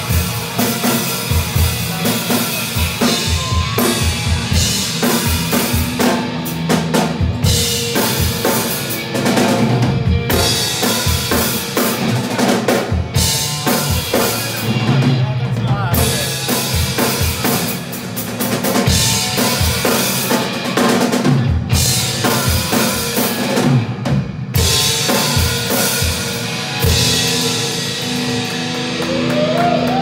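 Live band playing loud: a drum kit keeps up dense bass drum, snare and cymbal hits over an amplified guitar.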